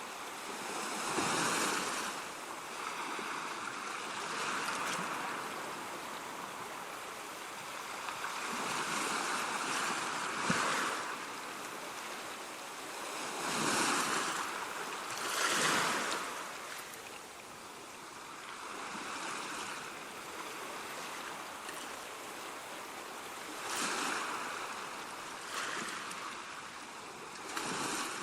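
Sea waves breaking on a shore in a steady wash of surf, each wave swelling up and falling away every few seconds.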